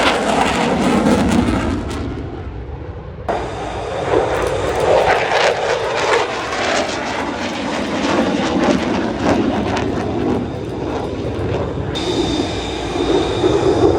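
Loud engine roar of an airplane flying past, its pitch falling early on as it goes by. The sound changes abruptly about two to three seconds in, and a steady high whine joins about twelve seconds in.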